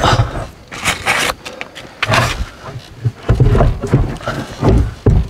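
A heavy wet-cell lead-acid battery being slid and lifted through a metal battery-compartment opening: its plastic case scrapes and knocks against the compartment in a string of irregular scrapes and low thumps.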